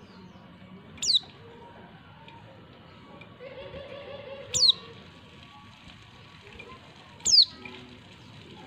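Female white-eye (pleci) giving three short, sharp, high-pitched calls that drop in pitch, about three seconds apart. This is the female call that stirs male white-eyes to answer.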